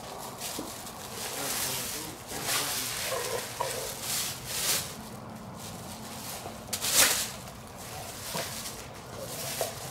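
Plastic sheeting crinkling and rustling in irregular bursts as rope is pulled through and off large catfish lying on it. The sharpest rustle comes about seven seconds in.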